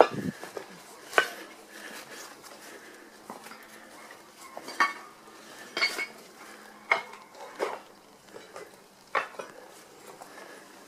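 Footsteps on rubble and broken tiles: irregular sharp clinks and crunches, roughly one a second.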